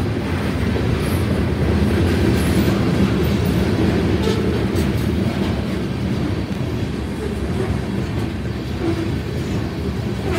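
Covered hopper cars of a freight train rolling past at close range: a steady, low rumble of steel wheels on the rails.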